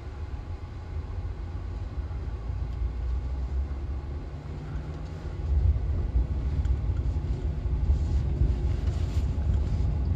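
Cabin sound of a BMW X5 driving on a dirt track: a steady low rumble of engine and tyres on the rough surface, getting louder a little past halfway through.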